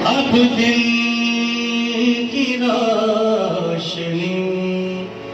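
Male ghazal singer holding a long sung note for about two and a half seconds, then sliding down through a descending run, over a harmonium accompaniment.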